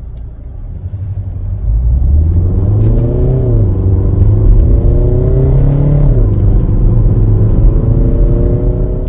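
Renault R-Sound effect: a synthetic sporty engine note played through the car's speakers, swelling about two seconds in, its pitch climbing and falling back twice as with revs, then climbing slowly again.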